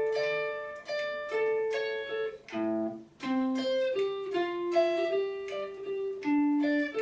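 Electric guitar in a clean tone picking a single-note riff note by note, each note left to ring into the next.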